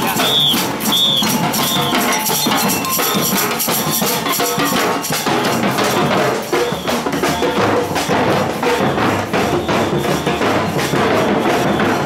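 Marching street drum band playing a steady rhythm on drums and clacking percussion, with a short high ringing note repeated several times in the first few seconds.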